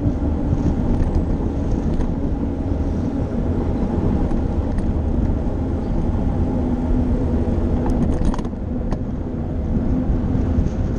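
Steady rumble of a bicycle rolling along a city street in car traffic, with road and wind noise and a low hum. A few light clicks come about eight seconds in.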